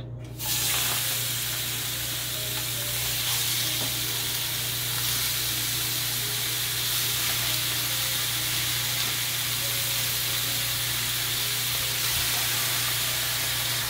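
Boneless, skinless chicken thighs sizzling in a hot, dry frying pan with no oil, frying in their own fat. The sizzle starts as the first thigh goes in about half a second in, then holds steady as more pieces are laid down.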